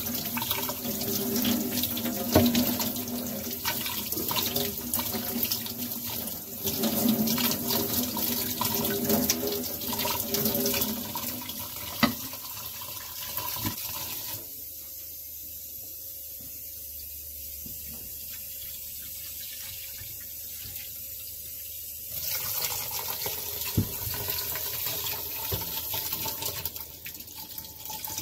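Kitchen tap running into a stainless-steel sink, splashing over a cooked lobster being rinsed under it by hand, with a few small knocks. About halfway through the flow sounds softer and steadier for several seconds, then grows louder again.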